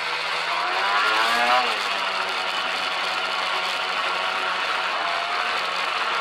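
Snowmobile engine running under way, revving up about a second in and dropping back, over a steady hiss.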